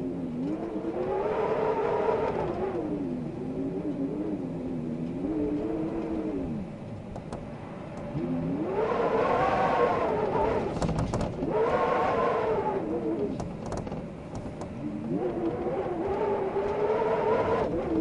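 Wind howling in gusts, a moaning whistle whose pitch rises and falls. It swells three times, the middle gust loudest, with a few faint clicks during it.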